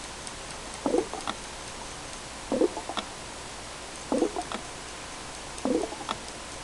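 Air-driven frog-on-a-log aquarium ornament releasing gulps of air bubbles that gurgle up through the tank water, four times at an even pace of about one every second and a half, each followed by a few small pops, over a steady hiss.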